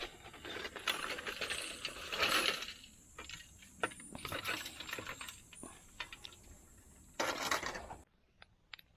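Small metal items clinking and rattling against each other amid rustling as they are handled, with many sharp clicks; the sound cuts off abruptly about eight seconds in, leaving a few faint ticks.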